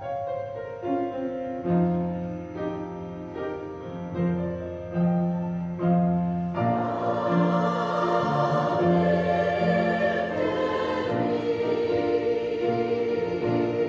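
Church music: a keyboard plays a hymn introduction in held chords, then a choir comes in singing with the accompaniment about six and a half seconds in.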